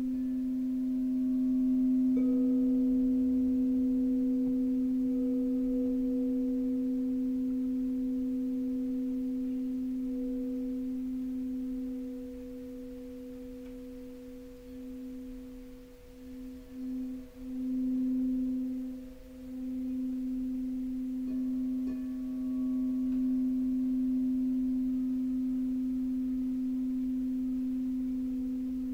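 Singing bowl ringing with a steady low hum and fainter overtones above it. It is struck afresh about two seconds in and again past the twenty-second mark, and the tone wavers and dips in the middle.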